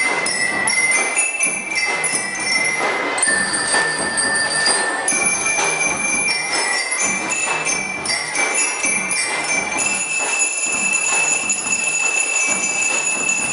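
Drum and lyre band playing: bell lyres ring out a melody of held metallic notes over a drum beat.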